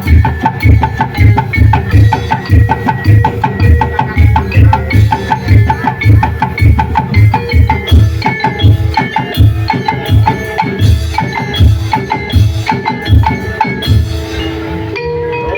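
Percussion ensemble playing a fast, steady beat of deep drum hits and sharp wood-block clicks with pitched notes over it. Near the end the beat stops and a few ringing notes hang on.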